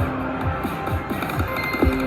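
Slot machine music and electronic jingles on a casino floor: short bright tones at several pitches over a repeating low beat.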